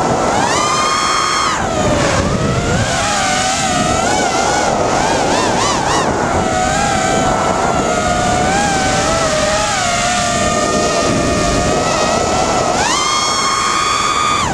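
Four Cobra 2204 2300kv brushless motors spinning 5x4x3 tri-blade props on a 5-inch FPV racing quadcopter, heard from its onboard GoPro: a whine that follows the throttle. It jumps up in pitch just after the start, wavers up and down through the middle, and climbs again to a high, held pitch near the end.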